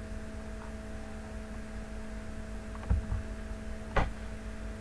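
Steady electrical mains hum with several fixed tones. A short double click comes about three seconds in, and a sharper single click follows a second later.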